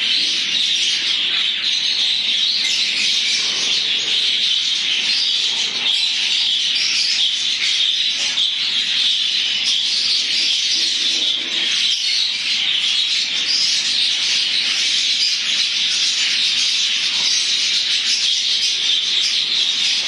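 A large flock of budgerigars chattering all at once, a dense, unbroken twittering and warbling.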